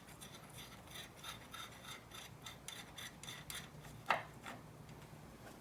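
A 10 mm wrench working a battery hold-down bracket bolt loose: a run of faint, quick metal clicks and scraping, with one sharper click about four seconds in.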